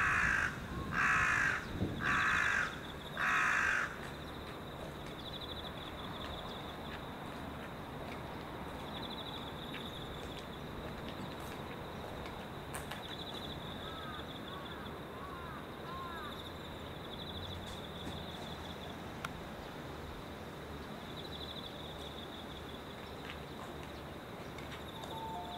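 A crow cawing four times, about a second apart. Afterwards a faint, high-pitched pulsing trill repeats every few seconds in the background.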